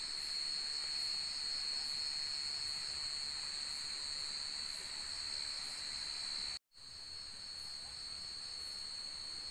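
Steady high-pitched chorus of night insects such as crickets, with a faint regular pulsing. It cuts out completely for a split second about two-thirds through.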